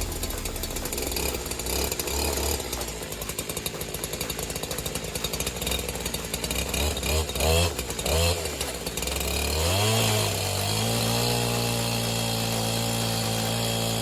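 Neotec 8105 105cc two-stroke chainsaw running unevenly, revving up in a few rising sweeps, then settling at a steady high speed from about ten seconds in.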